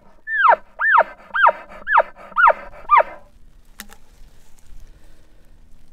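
Bull elk bugle trailing off into six quick, high chuckles, about two a second, each sliding down in pitch. A single sharp click about four seconds in.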